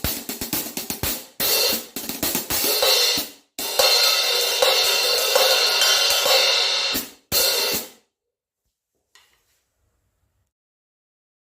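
15-inch Omete Zed Custom hi-hats played: a run of quick strokes, then longer open washes that are cut off sharply as the hats close. The playing stops about eight seconds in.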